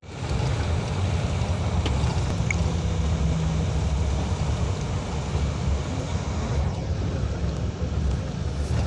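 Steady low rumble of a moving bus heard from inside the cabin: engine and road noise.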